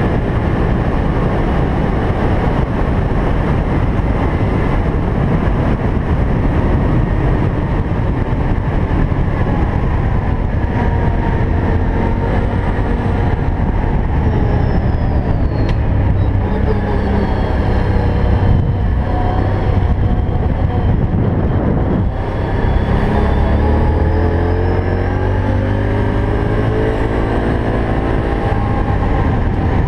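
Quad ATV engine running at cruising speed along a gravel trail, its pitch drifting up and down as the throttle changes, with a short dip in the engine note about two-thirds of the way through.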